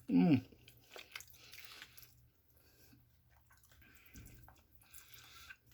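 Chewing food close to the microphone, with soft wet mouth clicks and smacks. Right at the start there is a short voiced "mm" that falls in pitch.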